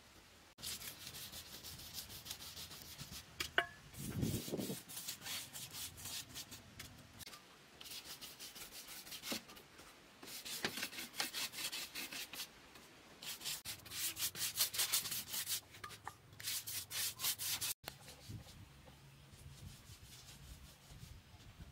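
A clay pot being scraped by hand with a stick: quick back-and-forth rubbing strokes in bursts of a second or two with short pauses. There is one sharp knock about three and a half seconds in, and the scraping stops near the end.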